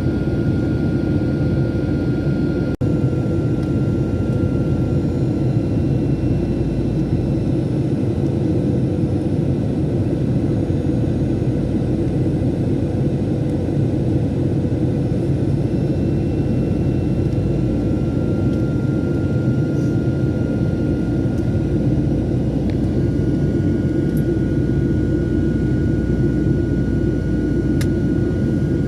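Airliner engines and airflow heard inside the passenger cabin: a steady, loud low drone with a thin steady high tone above it.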